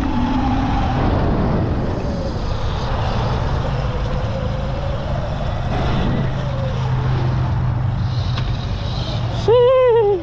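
Sur Ron Light Bee electric dirt bikes riding and jumping, the motor whine gliding up and down with the throttle over wind noise and a steady low hum. Near the end a sudden, much louder pitched sound arches up and falls away in under a second.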